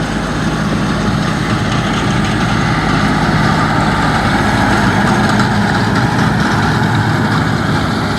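Farm tractor engine running steadily under the load of baling hay.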